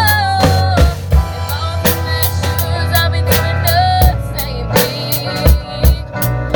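Live band playing a pop cover: drum kit with regular kick and snare hits over a steady bass line and held chords.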